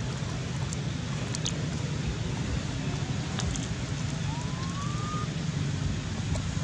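Wind rumbling on the microphone over outdoor background noise, with one short rising chirp a little past the middle.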